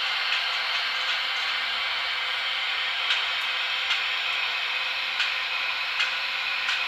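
Sound decoders in Märklin model SBB electric locomotives playing a steady hissing electric-locomotive running sound through their small speakers as the locomotives move a heavy ore train slowly. Short clicks come every second or so.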